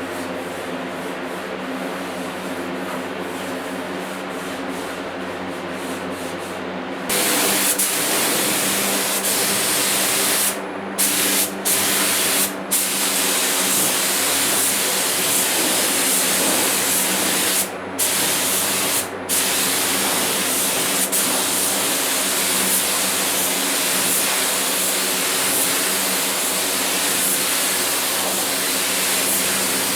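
Compressed-air paint spray gun spraying primer: a loud, steady hiss that starts about seven seconds in and breaks off briefly a few times as the trigger is let go. A steady machine hum runs underneath throughout.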